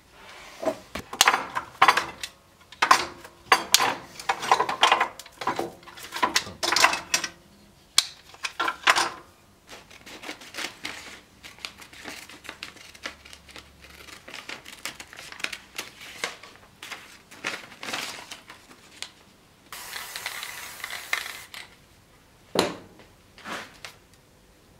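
Small hard tools and parts clicking, clinking and knocking against a workbench and metal vise during hand work on a wooden handle: a busy run of sharp clicks at first, then sparser ticks, a short rustle and two heavier knocks near the end.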